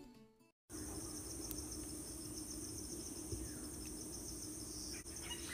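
Brief silence, then faint steady chirping of insects such as crickets in a rapid, even pulse, over a low steady hum.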